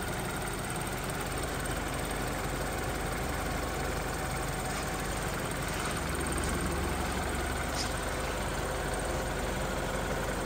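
Freshly rebuilt BMW N20 2.0-litre turbocharged four-cylinder engine idling steadily, still warming up from a cold start.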